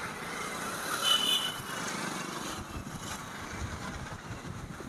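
A motorcycle running along the road, its engine mixed with road noise, with a short high-pitched tone about a second in.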